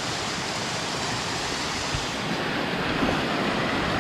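Waterfall water rushing steadily over rocks, a little louder from about halfway through.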